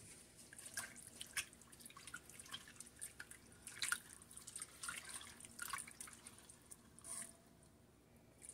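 A wooden spoon stirs thin soup broth in an enamelled pot, making faint, irregular splashes, drips and soft knocks that stop about a second before the end.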